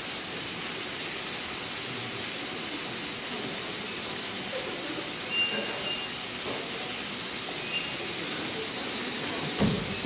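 Steady hiss in a darkened auditorium, with a few faint bumps and a louder thump near the end.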